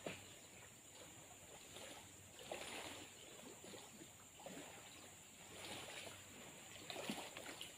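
Near silence: faint riverside ambience with a few soft swells and scattered small ticks.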